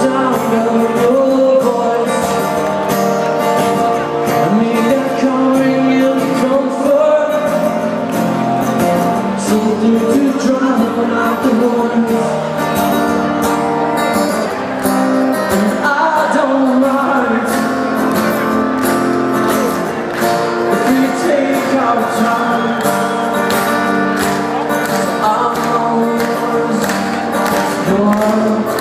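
Melodic hardcore band playing live over a festival PA: electric guitars and drums with singing, loud and continuous, heard from within the crowd.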